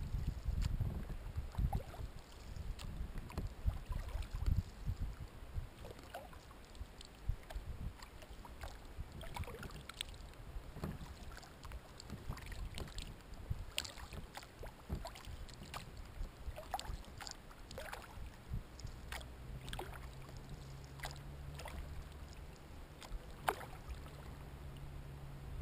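Kayak being paddled over calm water: irregular small drips and splashes from the paddle blades, with a low rumble in the first few seconds.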